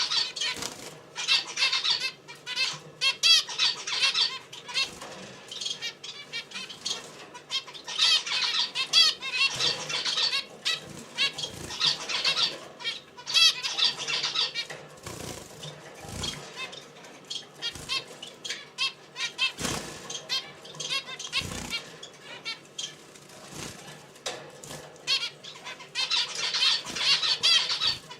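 Small wild birds chirping and twittering in quick, repeated bursts of high trills, with a few short low thumps between them.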